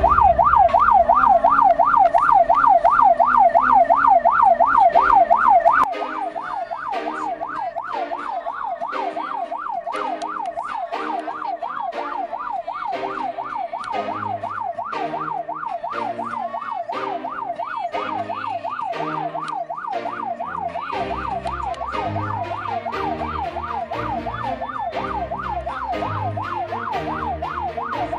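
Ambulance siren on a fast yelp, sweeping up and down rapidly and heard from inside the ambulance's cab. About six seconds in it drops quieter, and a rhythmic run of low notes sits beneath it.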